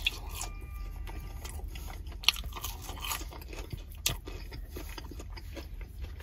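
Close-miked chewing of a breaded mozzarella stick, with soft crunches and a few sharper clicks scattered through.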